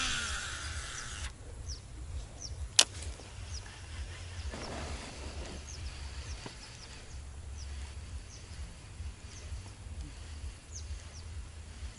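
Quiet waterside ambience: short high bird chirps every second or so over a low wind rumble on the microphone. A spinning reel whirrs briefly at the start, and there is one sharp click about three seconds in.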